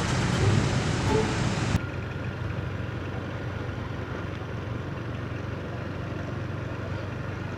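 Street traffic with motor vehicle engines running; about two seconds in it cuts abruptly to a quieter, steady engine hum.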